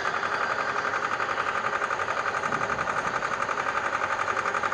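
Small engine of a weapons loader running steadily as it is driven, with a fast, even chugging pulse.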